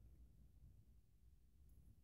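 Near silence: faint low room tone.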